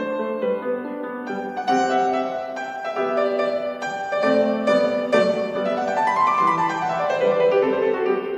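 Solo grand piano playing a classical piece, with a quick run of notes that climbs and then falls back a little past halfway.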